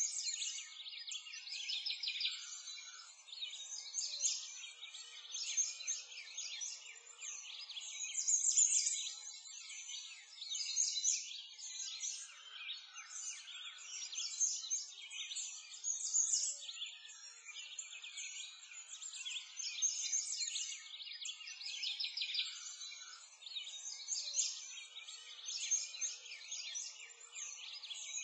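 A dense chorus of small songbirds chirping and twittering without a break, high-pitched, with louder swells every few seconds.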